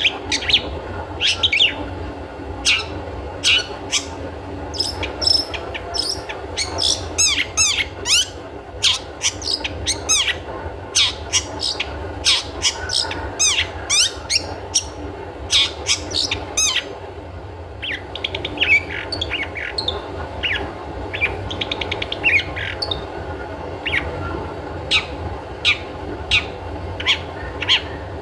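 Long-tailed shrike (cendet) calling: sharp, harsh short notes and fast runs of repeated chattering notes, the 'toet toet' call played as a lure to set other cendet singing. A brief pause comes about two thirds of the way through, and a steady low hum lies beneath.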